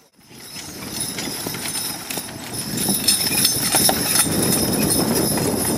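Hooves of a pair of harnessed draft horses clip-clopping as they pull a carriage, with the metal harness fittings jingling. The hoofbeats grow louder from about three seconds in.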